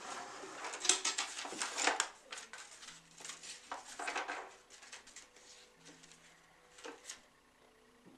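Rustling and light clattering of papers, cards and small objects being handled in a box, busiest over the first few seconds and then thinning to a few scattered clicks.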